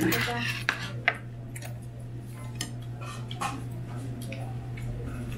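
Scattered light clinks of cutlery and dishes, the first and loudest as a metal spoon is set down in a ceramic plate, over a steady low hum.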